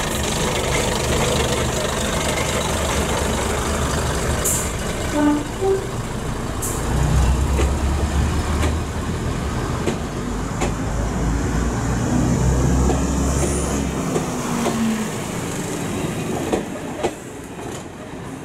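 A large engine running with a deep rumble that grows louder for several seconds in the middle, then eases off, with scattered clicks and knocks.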